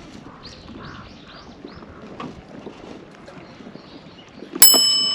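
A piece of metal struck once near the end, giving a sharp clink that rings on like a small bell and slowly fades. Before it, faint short chirps repeat over a low background hiss.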